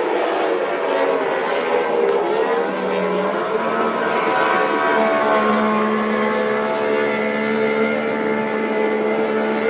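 Powerboat engine running at speed, a steady drone whose pitch dips a couple of seconds in, then rises and holds.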